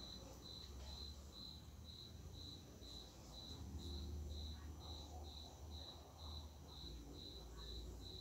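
A cricket chirping steadily, about two and a half evenly spaced high chirps a second, over a faint low rumble.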